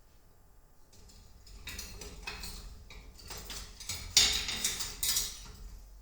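Kitchen handling noise: an irregular run of scrapes and clinks of dishes or utensils, loudest about four seconds in and again a second later.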